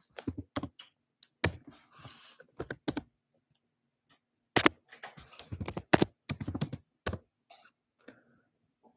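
Typing on a computer keyboard: short runs of quick keystrokes, with a pause of about a second and a half midway through.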